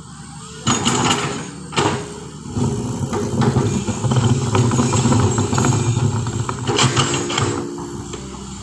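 Heavy vehicle engine running under load. It picks up about a second in, stays loud through most of the stretch and eases off near the end, with a few brief rushes of noise over it.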